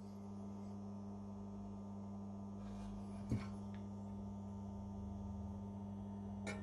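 Faint, steady electrical mains hum, with a single light knock about three seconds in.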